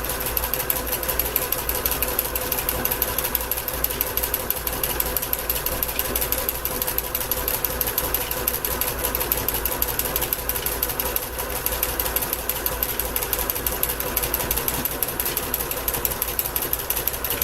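Basic Kenmore sewing machine running steadily, its needle stitching a zigzag stitch along a fabric edge in a fast, even rhythm over a steady motor whine.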